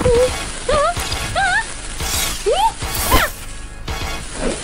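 Cartoon soundtrack: background music with short, squeaky, wavering character vocalizations and pitch glides, plus a couple of brief whooshing sound effects.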